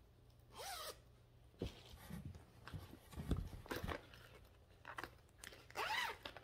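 A zipper on a project bag being pulled open in several short runs, with rustling and crinkling as the stitching project is handled.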